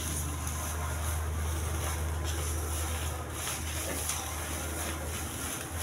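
Dry black mustard stalks and pods crackling and rustling as fingers rub and pick through them on a plastic tarp to free the seeds, with irregular faint crackles over a steady low rumble.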